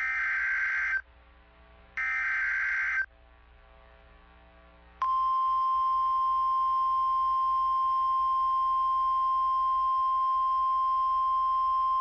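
Two bursts of SAME alert-header data from a NOAA Weather Radio broadcast: harsh digital warbling, about a second each and a second apart. About five seconds in comes the steady 1050 Hz warning alarm tone, which announces a new warning message.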